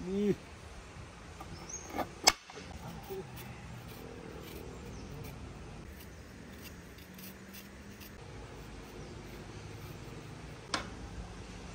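Cooking pots and utensils being handled: a few sharp knocks, the loudest two about two seconds in and another near the end, over a steady low background.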